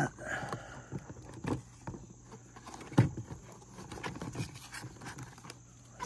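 Handling noise from a multitool's presentation box being opened and the tool lifted out: scattered light clicks and knocks, the sharpest about three seconds in.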